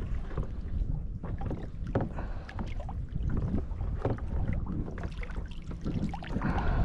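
Wind rumbling on the microphone, with scattered short splashes and knocks as a bluefish is held in the water beside a kayak for release.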